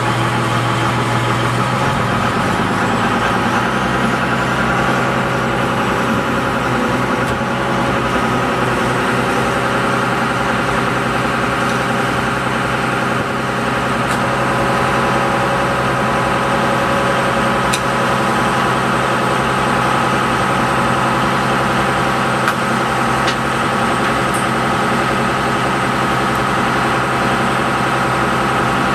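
Shrimp boat's engine running steadily, a continuous drone with a low hum that shifts slightly about two seconds in.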